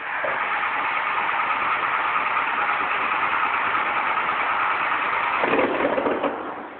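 1994 12-valve Cummins diesel starting suddenly and running roughly on freshly fitted injectors, with air still being purged from the fuel lines; after about five and a half seconds its sound changes and dies away, the engine not staying running.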